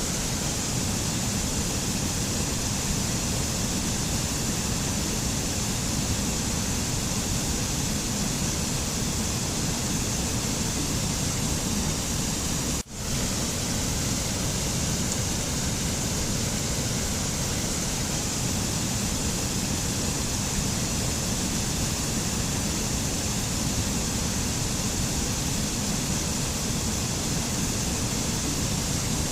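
Steady, even rushing noise with no rhythm or tune, spread from deep rumble to high hiss. It cuts out for an instant about 13 seconds in and comes straight back.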